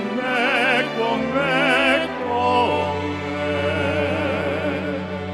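Men singing an operatic pop ballad in Italian into microphones, with wide vibrato on the repeated words "con me", over a backing track. About two seconds in, the voice settles into a long held note over a steady bass.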